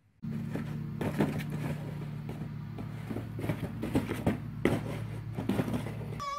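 Cardboard box knocked about by a leopard pawing and pouncing on it: a run of irregular knocks and scuffs over a steady low hum.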